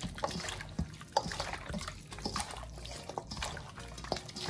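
Liquid dripping and trickling, with scattered small irregular clicks and taps.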